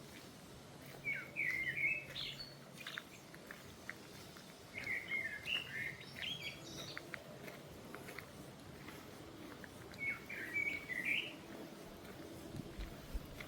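A songbird singing three short warbling phrases about four seconds apart, with faint footsteps on a path between them.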